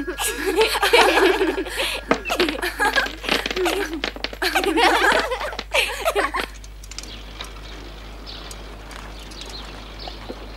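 Children cheering and laughing with excitement for about six seconds, then it cuts suddenly to a faint steady background.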